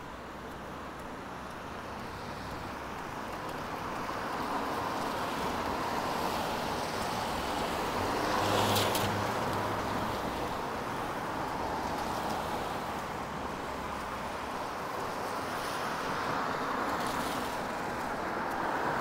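Road traffic on a city street: vehicles passing with a steady rush of engine and tyre noise that builds to its loudest about nine seconds in, eases off, then builds again near the end.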